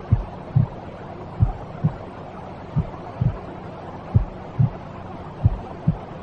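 A slow heartbeat: paired low thumps, lub-dub, about every second and a third, over a steady hiss of white noise.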